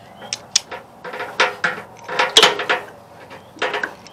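Hand-and-tool handling noise: a string of irregular clicks, taps and short scrapes, loudest about two and a half seconds in, as a stiff rubber hose is worked off a riding mower's carburetor.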